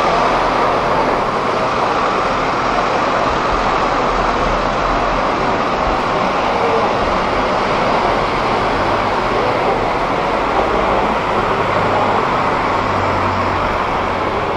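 Steady street traffic noise, with a vehicle engine's low hum coming in about eleven seconds in.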